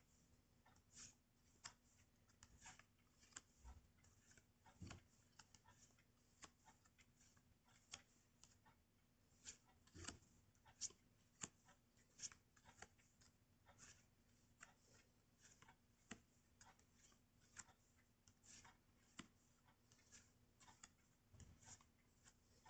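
Faint rustling and flicking of small paper timetable cards being leafed through and shuffled by hand, with irregular soft clicks a few times a second.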